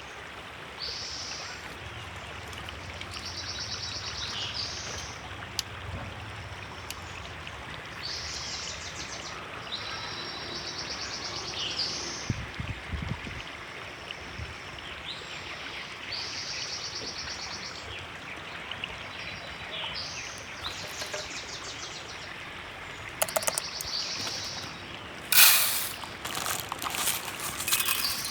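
River water flowing steadily while birds sing repeated short, high, trilled phrases. Near the end come a few sharp knocks or clatters, one of them much louder than the rest.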